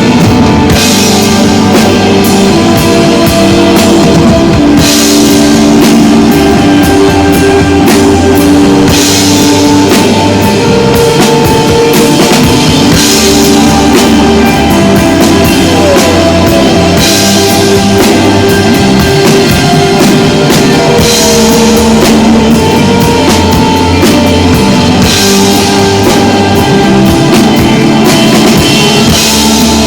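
Live instrumental desert rock band playing: electric guitar and bass holding sustained notes over a drum kit, with a cymbal crash about every four seconds.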